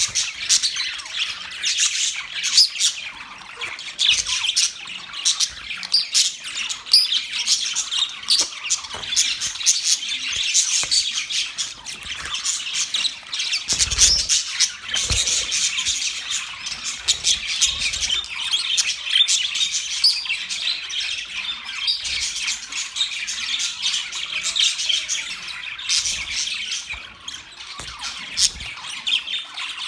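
Budgerigars chirping and chattering in a dense, unbroken stream of high squawks and warbles, with a brief low thud about fourteen seconds in.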